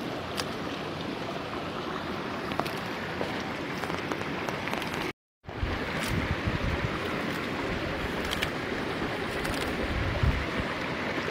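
Steady rush of a nearby stream, with faint snaps and rustles as leafy herb stems are pulled by hand. The sound drops out completely for a moment about halfway through, and after that wind buffets the microphone with low rumbles.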